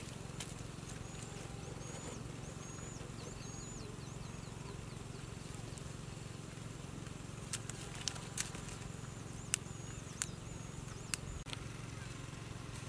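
Open-field ambience: a steady low hum under a small bird's repeated short chirps. In the second half come a few sharp clicks and snaps as cauliflower heads and leaves are handled.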